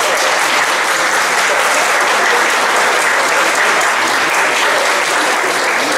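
Audience applauding: a large crowd clapping steadily throughout.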